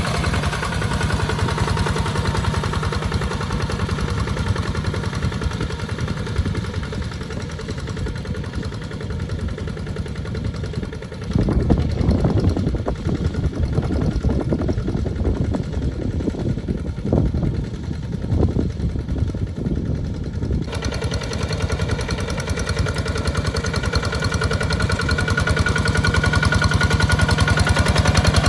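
Tractor engine running steadily, pulling a plow through a wet rice field. About a third of the way in it becomes louder and rougher for about ten seconds, then settles back to its steady run.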